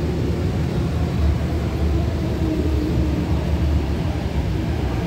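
MTR Kwun Tong line C-Train heard from inside the car as it pulls out of a station: a steady low rumble of motors and wheels with a faint hum above it.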